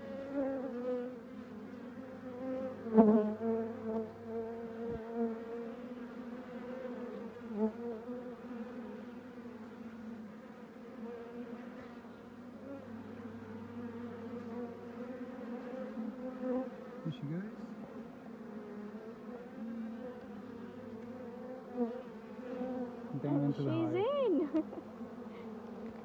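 Honey bee colony humming steadily from an open brood box. Single bees buzz close past, giving a rising-and-falling whine about two-thirds of the way through and again near the end, and there is a brief bump about three seconds in.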